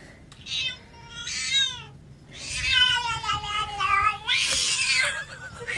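Domestic cat meowing in drawn-out yowls: a short faint call, then one falling in pitch, then a long wavering call of about two seconds that breaks into a harsh, breathy stretch near the end.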